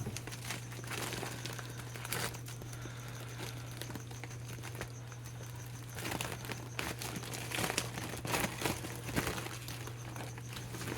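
Plastic shipping bags crinkling and rustling as they are handled and opened, in irregular spells that grow busier about halfway through, over a steady low hum.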